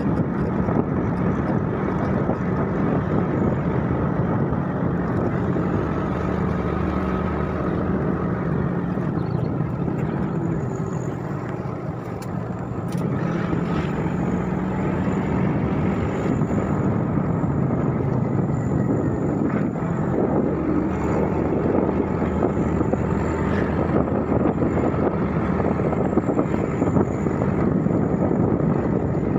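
Motor scooter engine running steadily while riding, with wind rushing over the microphone; the engine eases off briefly about twelve seconds in, then picks up again.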